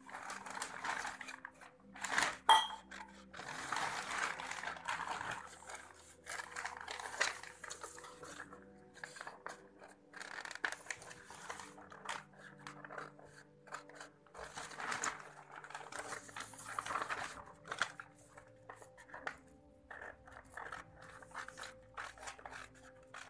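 Scissors cutting through stiff chart paper: repeated snips with paper rustling as the sheet is turned, and one sharp click about two and a half seconds in.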